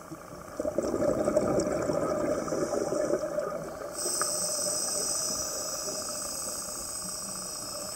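A scuba diver's breathing heard underwater. About half a second in, exhaust bubbles from the regulator bubble out for some three seconds. From about four seconds in comes the steady high hiss of an inhalation through the regulator.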